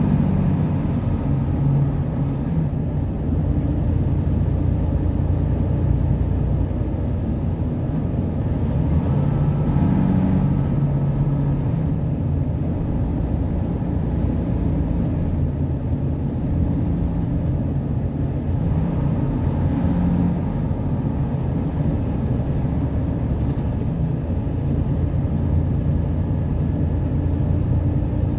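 Steady engine drone and road noise heard from inside a vehicle's cab while it drives along at cruising speed.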